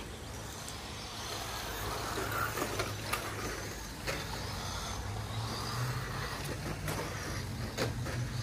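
1/10-scale electric RC rally cars running on a dirt track, their motors whining up and down over a noisy scrabble of tyres. A few sharp clicks break in, and a steady low hum runs underneath.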